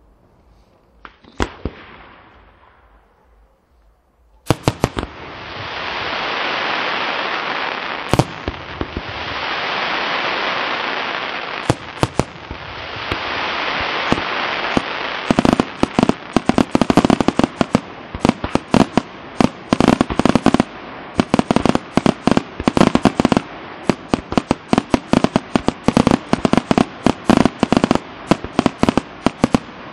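Fireworks display: two sharp bangs in the first two seconds, then a loud hissing rush starts suddenly about four seconds in and swells and fades in waves. From about halfway on, rapid crackling bangs come many times a second.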